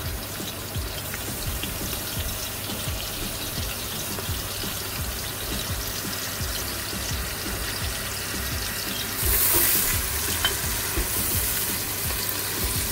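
Sliced onions frying in hot oil in an aluminium pressure cooker: a steady sizzling hiss that swells for about a second some three-quarters of the way through.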